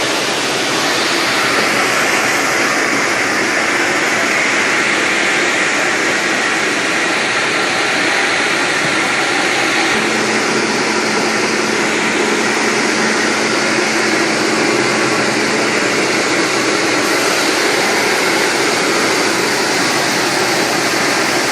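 Sawmill running steadily as it saws through a nyatoh log, a continuous loud machine-and-blade noise.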